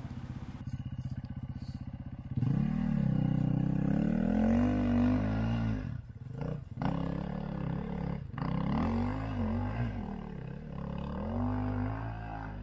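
Dirt bike engine idling briefly, then revving hard and unevenly, the pitch rising and falling again and again with a couple of short throttle chops, as the bike struggles for grip on a slick, muddy hill.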